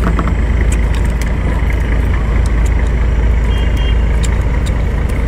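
Steady low rumble throughout, with a few faint cracks as a cooked crab's shell and legs are pulled apart by hand.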